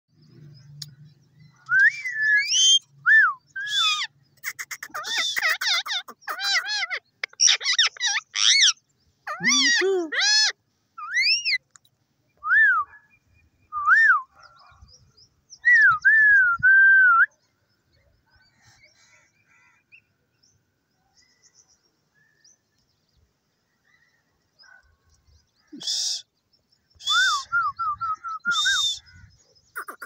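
Ringneck parakeet whistling and chirping in quick rising and falling glides, then going quiet for several seconds. Near the end it gives a few harsh screeches and a fast run of short chirps.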